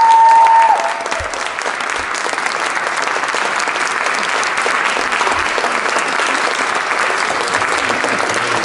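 An audience applauding steadily. A long, high-pitched call from someone in the crowd carries over the clapping and cuts off within the first second.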